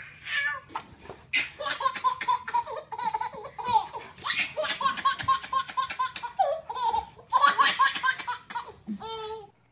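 A baby laughing in several long runs of quick, repeated belly laughs.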